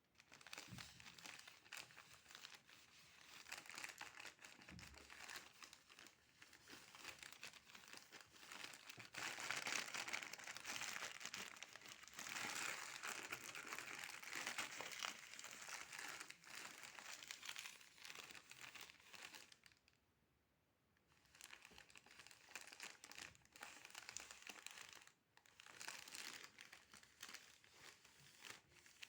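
Faint, continuous crinkling and crackling close to the microphone, louder in the middle stretch, with a short pause about twenty seconds in.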